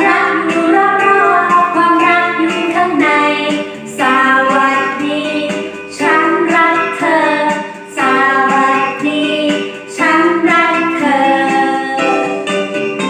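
A woman singing a Thai children's song over instrumental backing music, in phrases about two seconds long.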